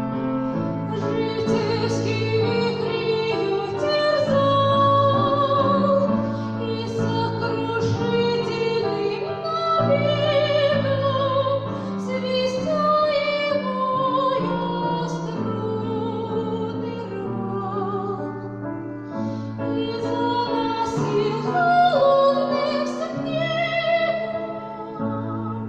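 A woman singing a Russian romance in classical, operatic style with wide vibrato on held notes, over sustained piano chords.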